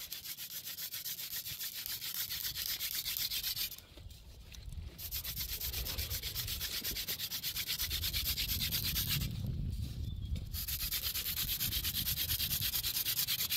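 Fast, rhythmic rubbing or rasping, several strokes a second, broken by two pauses of about a second, around four and nine and a half seconds in.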